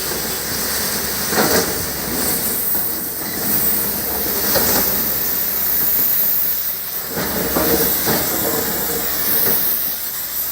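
Backhoe loader at work: a steady rumbling, hissing machine noise with a few brief knocks about a second and a half in, near five seconds, and again around seven to eight seconds.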